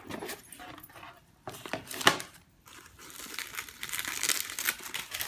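Paper packaging rustling and crinkling as a handbag is unwrapped, in irregular handling bursts with a sharper crackle about two seconds in and denser continuous rustling near the end.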